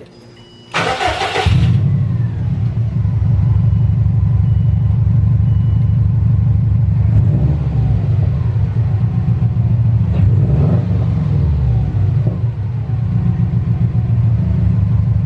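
Subaru WRX's turbocharged flat-four boxer engine cranks and starts about a second in, then idles, with the throttle blipped a few times. The exhaust runs without the little flutter of an exhaust leak, now that the joint between the catalytic converter and the cat-back is sealed with a new donut gasket.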